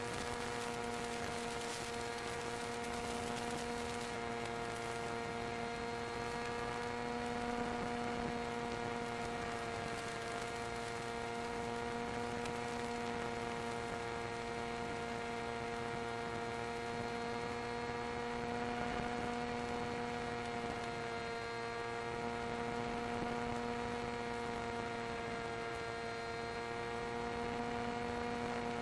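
A model plane's motor and propeller running at a steady throttle, heard as a constant droning hum whose pitch wavers only slightly.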